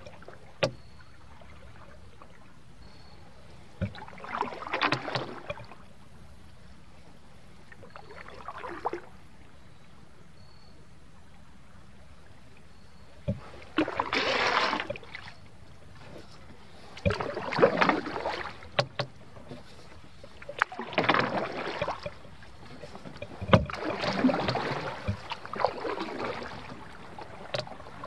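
Canoe paddling: a paddle dips and pulls through the water every few seconds, each stroke a short splash and swish, with occasional sharp knocks against the canoe between strokes.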